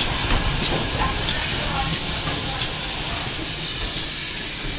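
Steam hissing from GWR 57xx-class pannier tank 5764 as it draws its train slowly past, with occasional light clicks from the wheels of the train.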